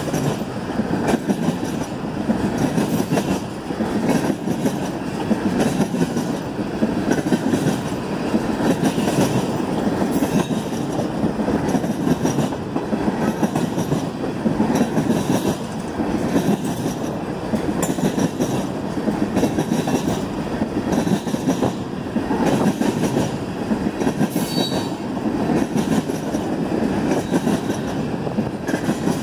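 Freight train of tank cars rolling past close by: a steady rumble of steel wheels on the rail with an uneven clacking.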